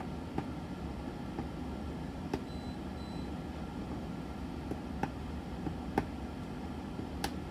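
Occasional small clicks of a screwdriver turning a terminal screw to clamp a wire on an alarm panel's terminal strip, over a steady background hum.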